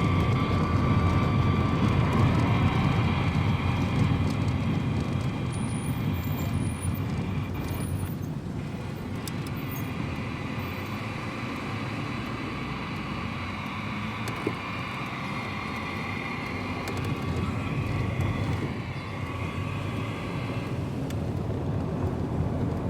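Steady vehicle rumble, a low engine and road noise. It eases slightly a few seconds in and builds again near the end.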